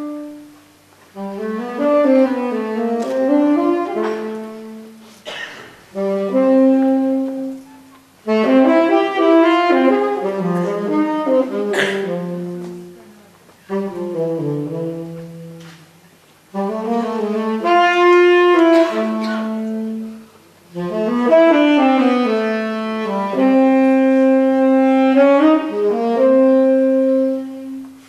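Solo saxophone playing a melody live, in phrases of a few seconds separated by short pauses.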